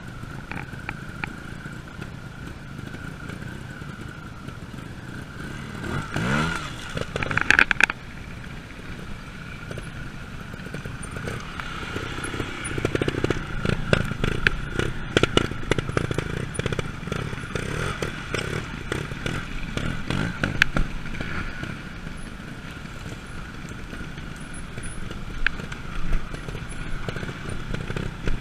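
Trials motorcycle engine running at low revs while the bike climbs over rocks and roots, with a rev that rises in pitch about six seconds in. Stones and the bike clatter and knock throughout.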